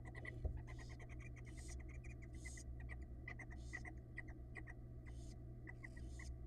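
Newly hatched barn owl nestlings calling with quick, high chittering peeps, several a second, thinning out toward the end, over short airy hissing patches and a steady low hum. A single click comes about half a second in.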